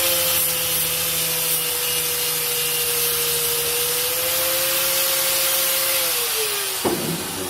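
Power tool running steadily with a hiss of abrading metal as rust is taken off a pocket knife blade. Near the end the motor hum drops in pitch as it slows, then there is a sharp knock.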